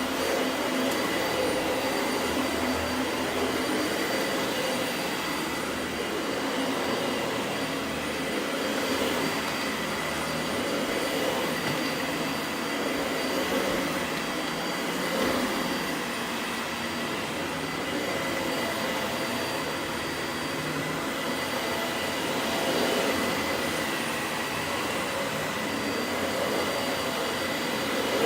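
Dyson Light Ball Animal upright vacuum cleaner running on a rug, a steady motor and airflow noise with a thin high whine; the level swells and dips slightly as it is worked back and forth.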